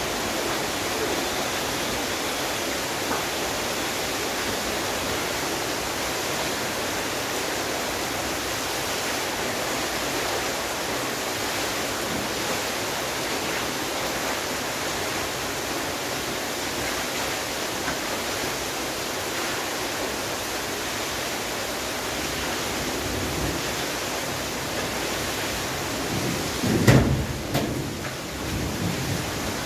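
Steady rain falling, an even hiss. Near the end a brief, louder thump breaks through, followed by a few smaller bumps.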